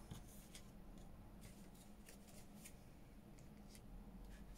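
Near silence: room tone with a low hum and a few faint, sharp ticks from small paper craft pieces being handled.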